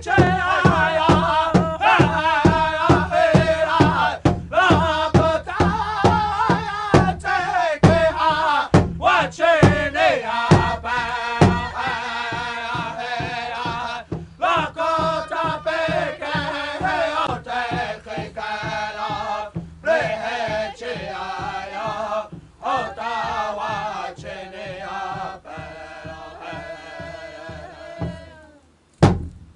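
Music of chanting voices, with a regular drum beat under the chant over roughly the first half, after which the chanting goes on with fewer beats.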